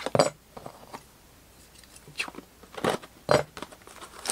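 Clear plastic shrink-wrap being torn and peeled off a trading-card blaster box: a few short crackling rips and crinkles with quiet gaps between them.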